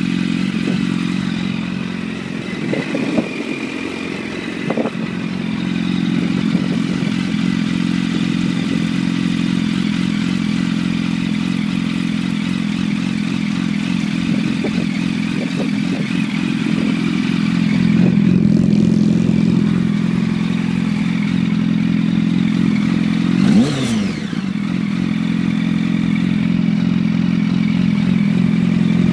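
2006 Yamaha R1 inline-four with a full titanium Arata exhaust idling steadily, with a few light clicks and scrapes early on.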